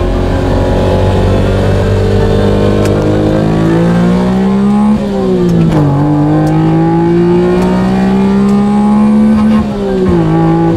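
Honda Beat's 656 cc three-cylinder engine revving hard in the low gears, heard from inside the cabin: the pitch climbs steadily, drops with an upshift about five seconds in, climbs again and drops with another shift near the end. It is running on freshly changed oil, and the owner finds it now revs smoother and flatter.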